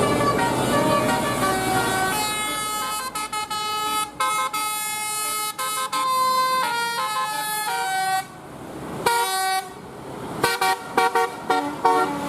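Bus 'telolet' musical horn of the Basuri type playing a quick tune of stepped notes, over engine and traffic noise at first. It pauses about eight seconds in, then ends with a run of short, clipped notes.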